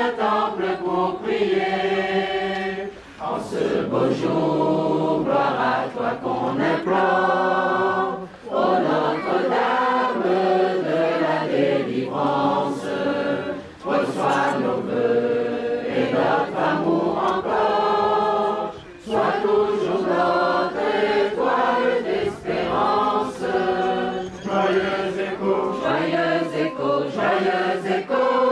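A choir singing a French hymn to the Virgin Mary, in phrases of about five seconds with brief breaks between them.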